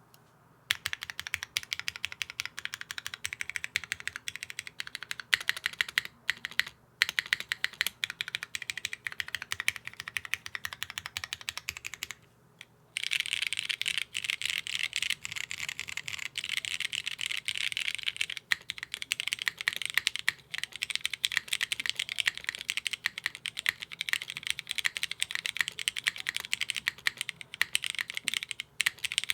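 Typing on a plateless mechanical keyboard with lubed Cherry MX Black Hyperglide linear switches, DCS-profile keycaps and no case foam. A steady stream of keystrokes starts about a second in and stops for a moment near the middle. It resumes denser and louder. The spacebar's right stabilizer had popped out, which the owner found spoiled the spacebar's sound.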